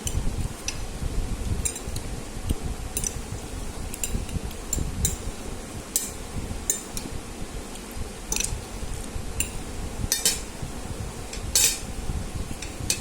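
Cutlery clinking against a dish of Maggi masala noodles while eating, in short irregular clicks, a few each second.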